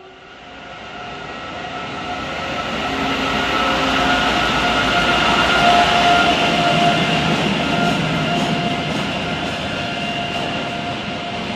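Renfe train running along the track past the listener: a rushing rumble that builds over the first few seconds, is loudest about six seconds in, then eases slightly, with steady ringing tones over it.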